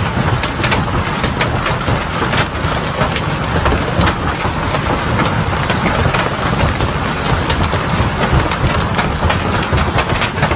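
Heavy hail pelting down: a dense, loud drumming of hailstones striking a hard surface, with many distinct sharp hits over a constant low rumble.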